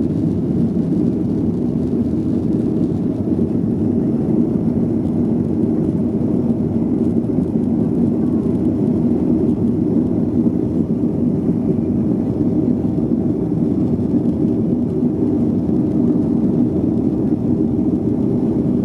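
Boeing 737-400's CFM56-3 turbofan engines at takeoff thrust, heard from inside the cabin: a steady, loud low roar as the jet lifts off the runway and climbs out.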